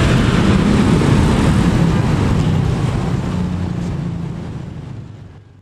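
Road traffic, cars and motorcycles driving past, as a steady low rumble with engine hum that fades out near the end.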